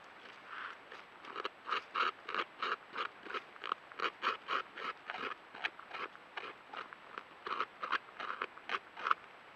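Beaver gnawing into the trunk of a large aspen, its teeth scraping out wood in quick, sharp strokes about three a second. The gnawing starts about half a second in and stops shortly before the end.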